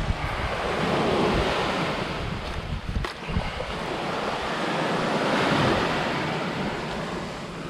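Surf washing in and out on the shore, swelling and easing, with wind buffeting the microphone. A short sharp knock about three seconds in.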